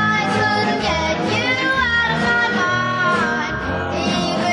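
Early-1960s pop record playing: a singing voice over guitar and a backing band, in a steady mid-tempo.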